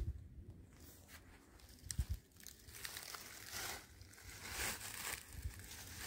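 Faint crunching and rustling of footsteps on dry leaf litter, with a soft thump about two seconds in.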